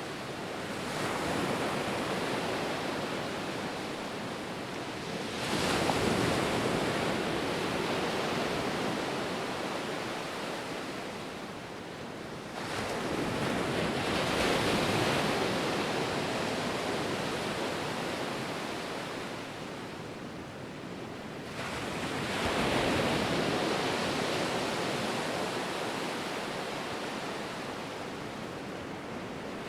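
Ocean waves breaking: four surges of surf several seconds apart. Each rises suddenly and slowly fades into a steady wash.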